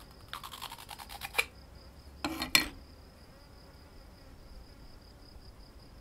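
3D-printed plastic inner mold being twisted and pulled out of a frozen silicon carbide crucible: a rapid grating run of clicks for about a second, then a shorter, louder scrape a little after two seconds in. A faint steady high-pitched whine runs underneath.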